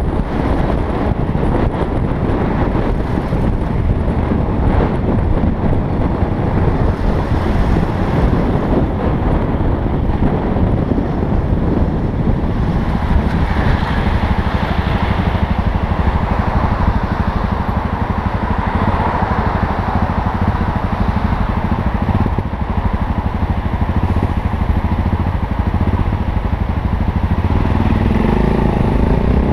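Yamaha XT660Z Ténéré's single-cylinder four-stroke engine running under way, with heavy wind rush on a helmet-mounted camera. The wind eases in the middle as the bike slows in queued traffic, and the engine note rises near the end as it pulls away.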